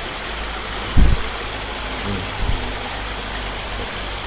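Shallow stream water running steadily, with a dull low thump about a second in and a couple of softer knocks a little later.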